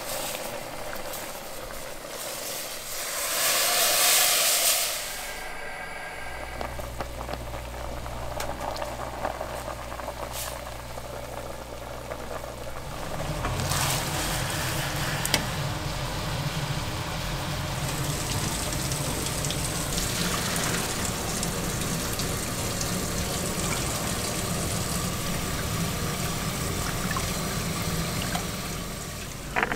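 Water pouring for about two seconds, a few seconds in, then a steady hiss with a low hum beneath it as a pot of stock is brought to the boil.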